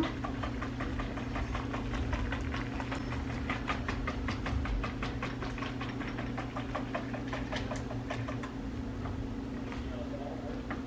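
Whisk stirring soup in a pot, its wires tapping and scraping against the pot in a quick, even rhythm of several strokes a second, over a steady low hum.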